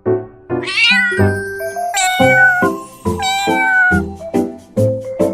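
Domestic cat meowing three times, each call rising and then falling in pitch, over light background music with short repeated notes.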